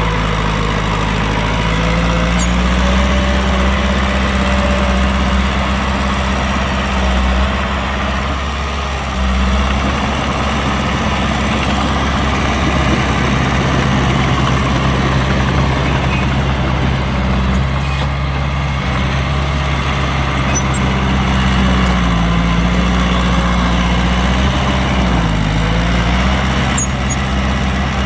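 Heavy diesel engine of earthmoving machinery running steadily, a deep, continuous engine note; in the last third the pitch dips briefly twice as the engine is loaded or throttled back.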